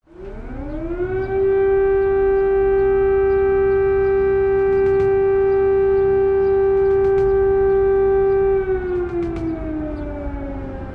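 Civil-defense air-raid siren winding up over about a second, holding one steady wail, then slowly winding down in pitch near the end.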